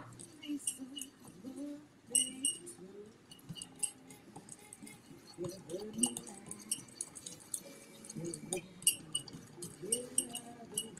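A metal utensil clinking and scraping against a ceramic bowl in quick, irregular taps as chocolate that is melting is stirred, with faint voices underneath.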